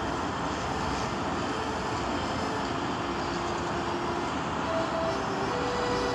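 Steady road traffic: lorries and motorbikes passing on a busy road, a continuous rumble of engines and tyres.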